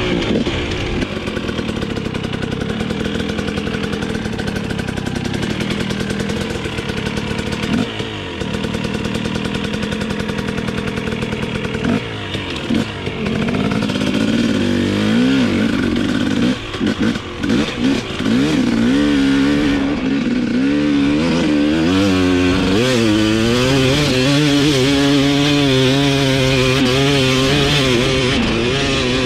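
Dirt bike engine running, its revs rising and falling over and over in the second half as the throttle is worked, with a few brief drops in between.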